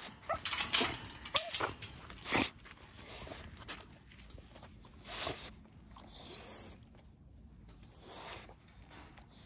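A dog's short whines mixed with sharp clinks and rattles of a metal wire pen gate, busiest in the first two and a half seconds. Softer rustling follows.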